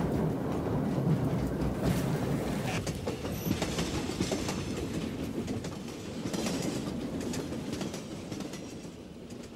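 Railway carriage running on the rails, its wheels clattering, as a steady noise that slowly fades out toward the end.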